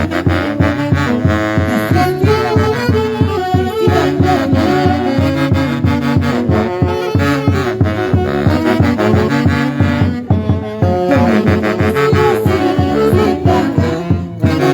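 Live Huancayo-style orquesta playing: saxophones and brass carry a melody over a steady beat.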